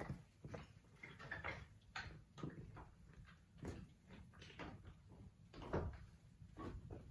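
Faint, irregular footsteps of a person walking away across rough grassy ground, heard as soft taps and knocks about one or two a second.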